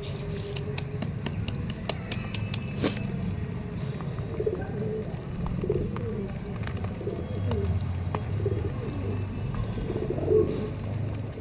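Domestic pigeons cooing again and again, with wavering low calls over a steady low rumble. A few sharp clicks sound in the first few seconds.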